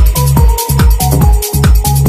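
Sped-up electronic dance music with no vocals: a steady kick drum about twice a second under a bright synth melody.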